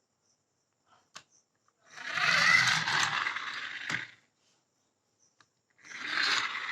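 Marbles rolling along a rain-gutter and wooden-rail marble run: a click about a second in, then a rolling rumble for about two seconds that ends in a sharp knock, and a second roll starting near the end.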